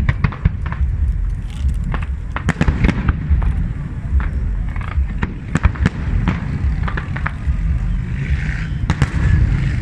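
Aerial firework shells bursting in an ongoing display: many sharp bangs and cracks in quick, irregular succession over a constant deep rumble.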